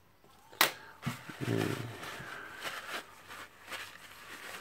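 Handling of small metal parts of a disassembled rotary hammer on a workbench: a sharp knock about half a second in, then clicking and scraping as parts are moved.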